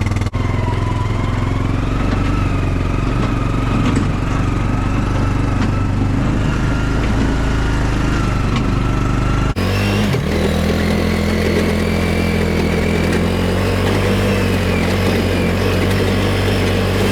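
Small gasoline engine of a gas-powered log splitter running steadily while it splits knotty firewood, with a faint whine that slowly rises in pitch. The sound changes abruptly twice, just after the start and about ten seconds in.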